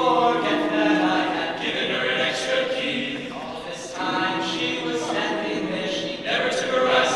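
Men's a cappella group singing sustained chords in close barbershop-style harmony, without instruments. The chords are held and changed together, easing off briefly about three and a half seconds in before picking up again.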